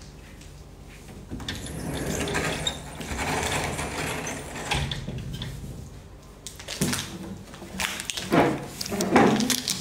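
Rustling and clicking handling noise close to the microphone, ending in a run of knocks and clicks as an acoustic guitar is picked up and moved.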